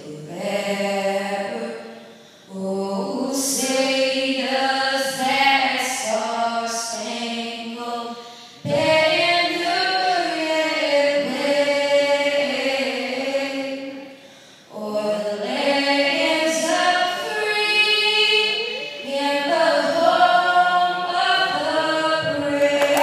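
The national anthem being sung, unaccompanied: long held notes in phrases, each separated by a brief pause for breath.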